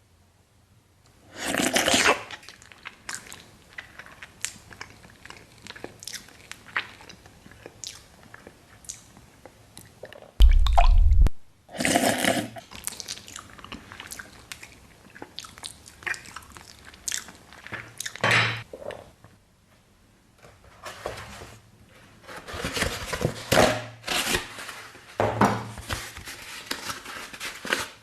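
Close-miked ASMR eating sounds of watermelon and raw egg: wet chewing and crunching with several louder bites. A single heavy, low thump comes about ten seconds in.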